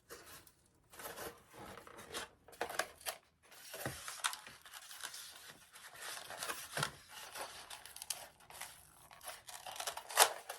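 Foam board being cut with a blade: a run of irregular scraping, tearing strokes, with one sharp click near the end.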